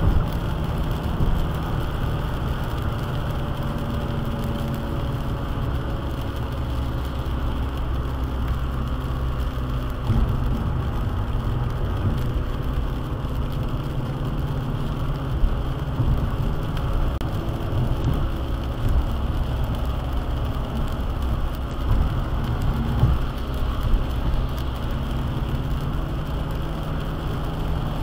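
Steady road noise from inside a car driving on a wet highway in rain, the low rumble of tyres and engine with rain on the windshield and a few brief knocks.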